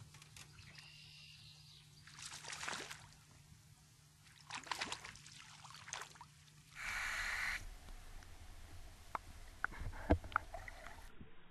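Lake water sloshing and splashing around a GoPro at the surface in several short swishes. About seven seconds in there is a brief loud rush, then the sound turns muffled and low, with sharp clicks and ticks as the camera sits underwater.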